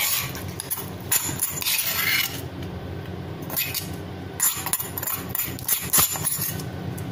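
A metal spoon scraping and clinking against a small steel tadka pan as leftover tempering is scraped out: a longer scrape about a second in, then a string of short clinks and taps.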